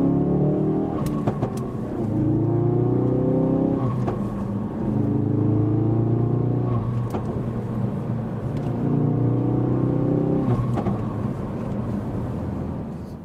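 Ford Focus RS Mk3's turbocharged 2.3-litre four-cylinder with a custom exhaust, accelerating hard and heard from inside the cabin. The pitch climbs through each gear and falls back at each of about four upshifts, with brief sharp cracks at the shifts.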